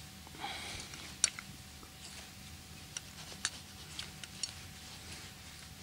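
Quiet, with a soft rustle about half a second in, then about six faint, sharp clicks scattered over the next few seconds.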